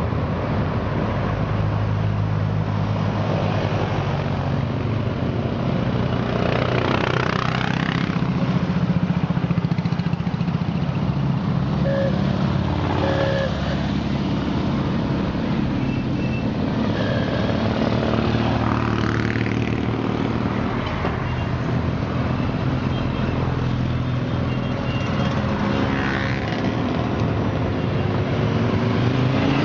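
A continuous stream of motorcycles and quad bikes riding slowly past, their engines running with a steady low drone and several bikes passing close with a rise and fall in pitch. Two short horn beeps about twelve seconds in.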